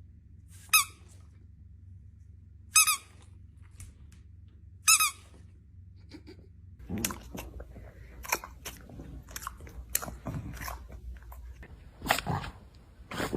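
Three short high squeaks about two seconds apart, then, from about seven seconds in, a dog chewing on something crunchy.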